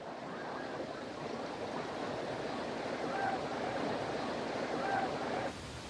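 Steady, even noise of a large stadium crowd, cutting off suddenly about five and a half seconds in and leaving only a faint hiss.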